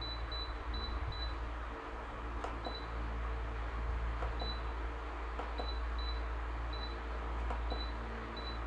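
Ultrasonic humidifier's control panel beeping as its setting buttons are pressed: short high beeps, a quick run of about five in the first second, then single and paired beeps every second or so, with light clicks. A steady low hum runs underneath.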